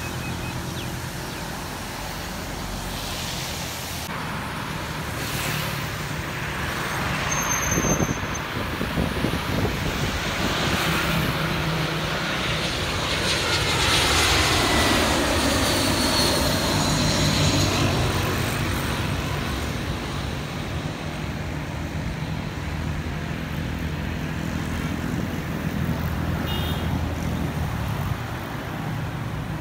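Airbus A320 jet passing low overhead with its gear down on approach: the engine noise swells to a peak midway, with a whine that falls steadily in pitch as it goes by, then eases to a steady distant rumble.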